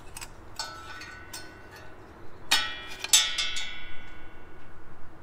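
Subaru manual transmission dipstick being pulled out of its metal tube: a run of light scraping clicks, then two louder metallic clinks about half a second apart that ring on and fade over about a second.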